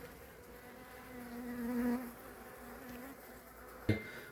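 Honeybees buzzing around an opened hive. One bee passes close about a second in, its buzz swelling and then fading, and another comes by briefly near 3 seconds. A short click just before the end.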